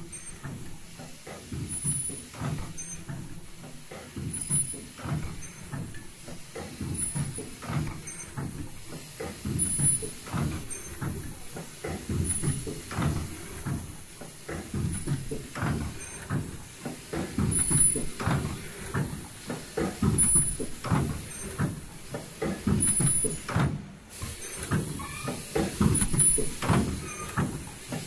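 Automatic folding-mask production machine running in a steady cycle about every 2.7 seconds: a second or so of mechanical clatter and rumble, each time with a short, very high-pitched whine typical of the ultrasonic welding station, then a quieter gap.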